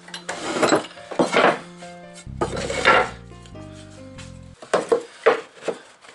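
Background music with three bursts of short scraping strokes on wood, two or three strokes in each burst. The music cuts off abruptly at the end.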